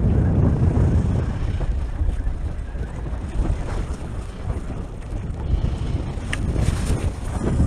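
Wind buffeting the microphone on a boat at sea, a steady low rumble, with a faint click or two near the end.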